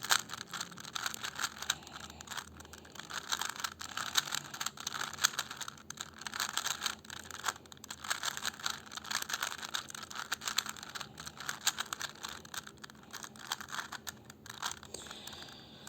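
Rubik's cube being turned rapidly by hand: a dense, irregular run of plastic clicks and clacks as the layers rotate during a solve.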